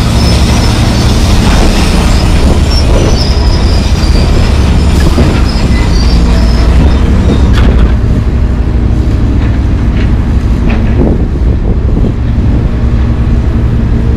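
Komatsu PC220LC crawler excavator running, with steady heavy diesel rumble and high metal-on-metal squealing of steel through the first half. A few sharp clanks come in the second half.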